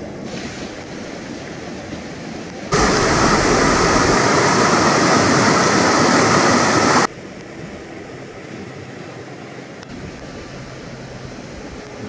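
River rapids rushing over boulders, a steady roar of white water. From about three seconds in until about seven seconds in the rush is much louder and closer, then it drops back abruptly to a softer, steady rush.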